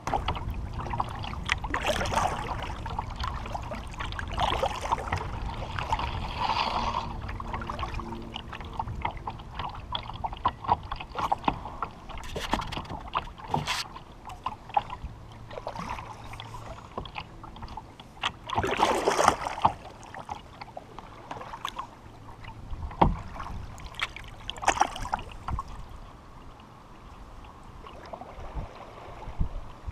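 Kayak paddling: paddle strokes splashing and water lapping against the plastic hull of an Old Town Vapor 12XT kayak, in irregular bursts with the loudest splash about two-thirds of the way through, over a low wind rumble on the microphone.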